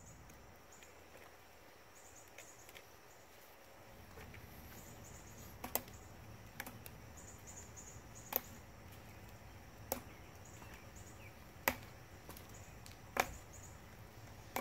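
Aluminium crutches tapping on a concrete patio as someone walks on them, six sharp clicks about a second and a half apart, starting about six seconds in. Insects chirp faintly in the background.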